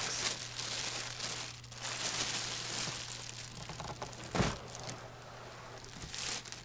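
Clear plastic bag crinkling and rustling as a printer is slid out of its cardboard box by the bag, with one low thump about four seconds in.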